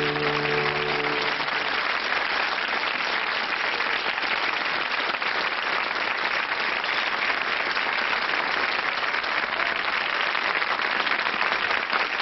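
Studio audience applauding steadily. The song's final held chord dies away in the first second or so.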